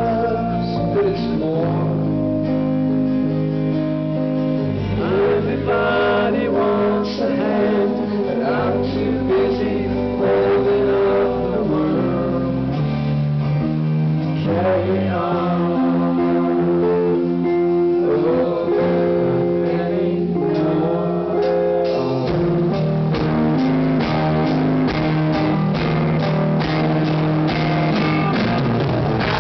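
Live rock band playing: electric and acoustic guitars, drums and a male singer, heard from the audience. The drum strokes come thicker and more regular about three-quarters of the way through.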